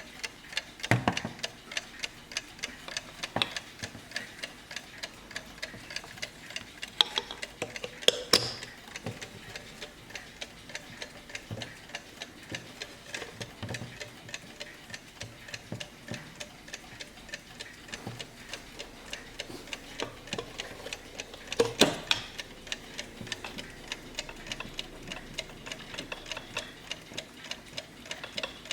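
The movement of a 1910s Junghans alarm mantel clock ticking steadily, about two to three ticks a second, with a few louder knocks here and there.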